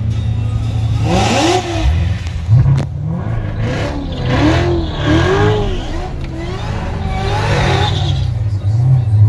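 Supercharged 6.2-litre V8 Corvette engine heard from inside the cabin, idling low and revved up and down in a series of short throttle blips, the pitch rising and falling with each one.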